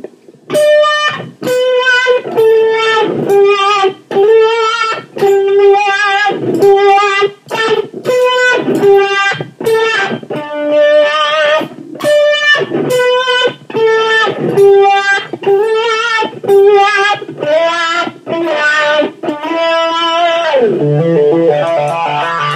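Electric guitar through an 18-volt Dunlop Cry Baby 535Q wah pedal with Clarostat pots, on its fourth range setting: a riff of picked single notes with the wah sweeping their tone. Near the end it settles into a sustained chord.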